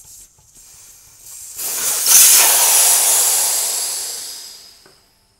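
Air hissing out of a Honda PCX 150 scooter tire through its open valve stem after the valve core is removed. The hiss starts about one and a half seconds in, is loudest just after, then dies away over the next three seconds as the tire deflates.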